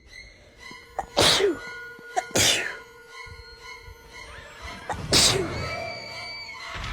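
A person sneezing three times: two sharp sneezes about a second apart, then a third a few seconds later, over background music.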